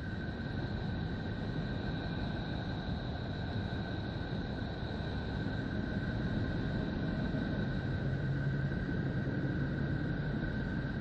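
Neptune's radio emissions translated into sound by NASA: a steady rushing, rumbling noise with two held high whistling tones over it.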